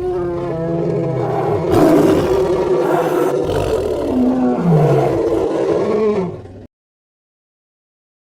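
Creature roar sound effect: one long roar of about six and a half seconds, its pitch shifting and gliding, that cuts off suddenly.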